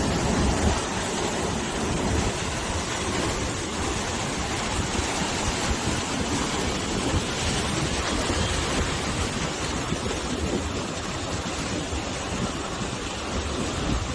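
Sea waves washing on a rocky shore together with wind: a steady rush of surf, with a fluttering low rumble from the wind.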